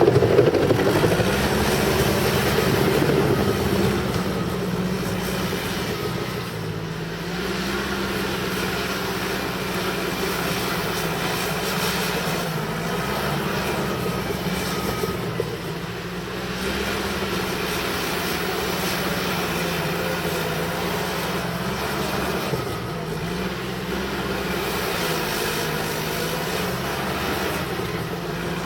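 Cat D5K crawler bulldozer's diesel engine running under load while dozing, its pitch dipping and rising slightly as the load changes. It is louder in the first few seconds, then steadies.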